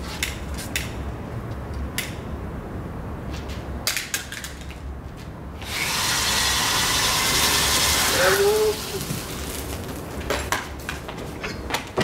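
Burning steel wool spun on an electric drill: scattered clicks and crackles, then a loud rushing hiss of flying sparks for about three seconds midway, ending with a brief wavering tone near its end, then more clicks.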